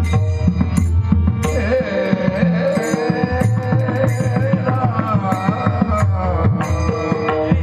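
Mridang (pakhawaj) played in a dense, fast pattern of strokes with a deep resonant bass, over a melodic accompaniment line.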